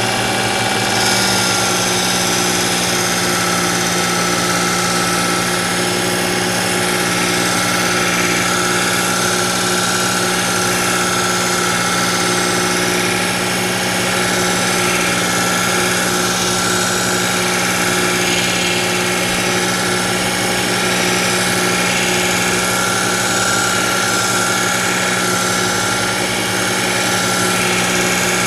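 Work Sharp electric belt knife sharpener running steadily, its fine X22 abrasive belt grinding a kitchen knife's edge, with a constant motor whine.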